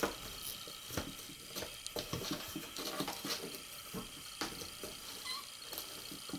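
Bengal kitten scratching and batting at a cardboard box, making an irregular run of scratches, taps and knocks on the cardboard.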